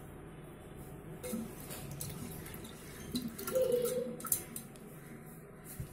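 Hand swishing and rubbing toor dal in water inside an aluminium pressure cooker to wash it: soft watery sloshing with scattered light clicks of lentils and fingers against the pot, busiest in the middle.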